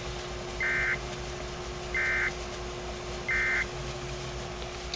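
Emergency Alert System end-of-message (EOM) data burst from a Sage EAS ENDEC: three short warbling digital bursts about a second and a half apart, signalling the end of the severe thunderstorm warning. A steady low hum and radio hiss run under them.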